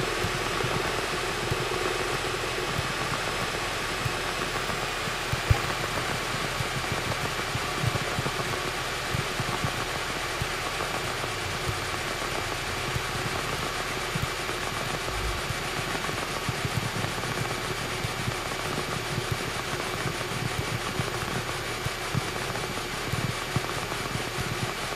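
Cessna 172's single piston engine and propeller running steadily at low idle power, heard from inside the cockpit, with a few light knocks in the first third.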